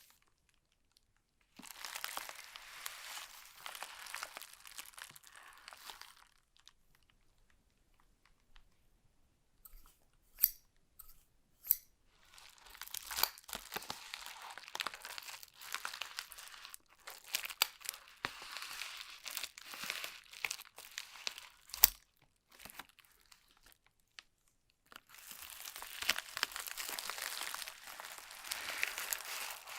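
Smartphone packaging being opened: crinkling, tearing and rustling of plastic wrap and paper in three stretches, with a few sharp clicks and taps between them.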